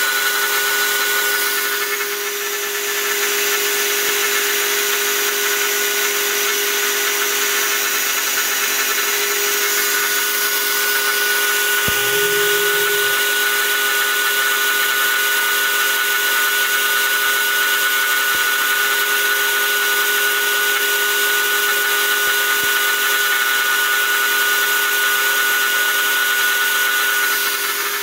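Router motor running at full speed with a steady high whine as its two-flute bit mills aluminum angle, with a dense hiss of cutting noise over it. The level dips briefly a couple of seconds in and again near the end.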